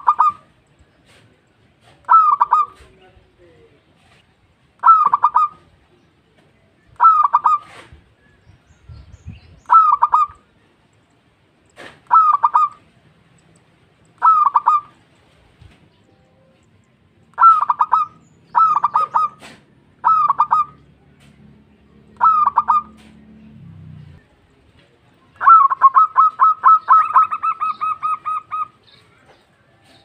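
Zebra dove cooing: short phrases of quick notes every two seconds or so, then near the end a longer run of rapid, evenly repeated coos lasting about three seconds.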